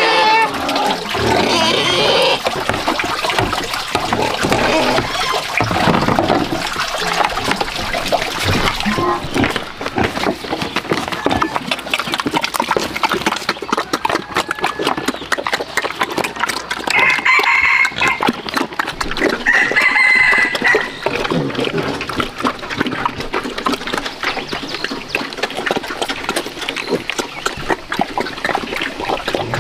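A rooster crows twice a little past the middle, over a continuous wet smacking and crackling of pigs eating mash from a metal pan.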